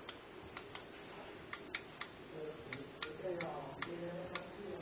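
Fingertip taps on a tablet oscilloscope's touchscreen buttons: about a dozen short, sharp clicks at an irregular pace.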